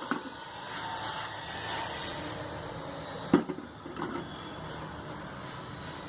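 Milk tea boiling in a pan on a gas stove: a steady hiss, with a few sharp clinks and knocks, the loudest about three and a half seconds in.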